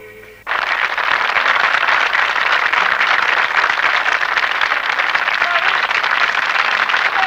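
The last notes of a song die away, and about half a second in a crowd starts applauding suddenly and keeps clapping steadily.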